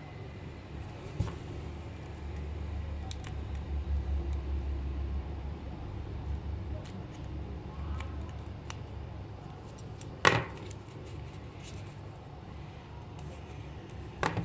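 Handling noise from a plastic mantis toy being turned over in the hands and probed with a small tool: low rubbing and scraping with scattered light clicks, and a sharp click about ten seconds in and another near the end.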